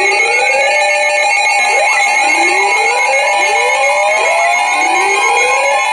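Emergency alert tone played between weather warnings: a steady two-note tone, with a rising whooping sweep repeating about every second and a half.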